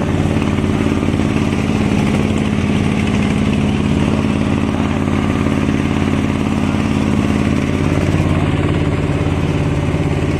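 Small boat's engine running steadily at an even speed.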